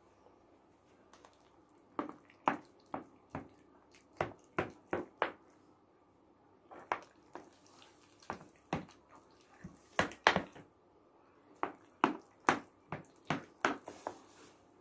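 Knife blade clicking and tapping against the metal bottom and edge of a baking pan while cutting through baked macaroni. The clicks come in clusters, one group for each cut, with short pauses between them. The loudest clicks come about ten seconds in.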